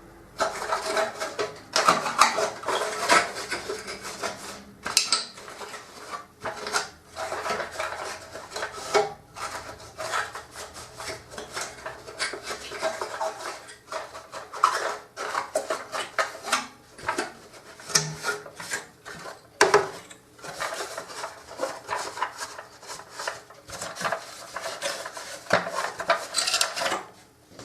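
Wiping and rubbing strokes over the plastic lid of a Samsung SC4520 vacuum cleaner, irregular scraping with frequent small knocks and clicks of the plastic as it is handled.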